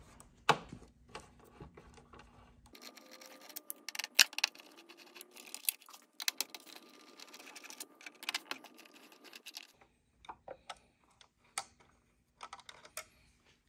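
Scattered small clicks and ticks of a hand screwdriver backing T27 Torx screws out of a metal fairing bracket, with the small screws being handled.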